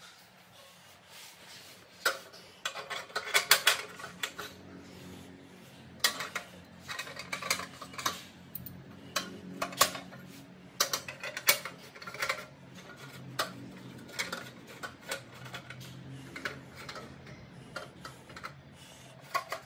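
Stainless-steel pan supports and brass burner caps clinking and knocking as they are set onto a glass-top gas stove's burners: irregular sharp metal-on-metal and metal-on-glass knocks, loudest a few seconds in.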